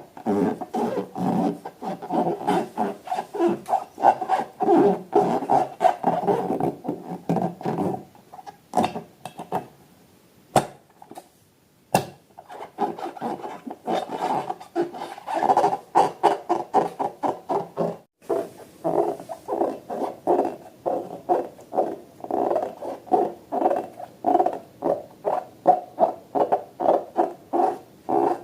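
Rubber balloons squeaking in quick, uneven strokes as they are rubbed and squeezed, with a pause about a third of the way in broken by two sharp clicks.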